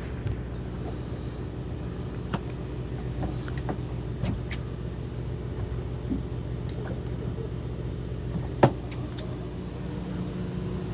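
A fishing boat's engine running with a steady low hum, with scattered small clicks and one sharp knock about three quarters of the way through.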